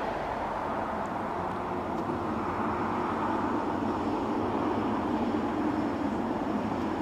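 Boeing 777-300ER's GE90 jet engines running, a steady rumble and hiss that swells slightly partway through.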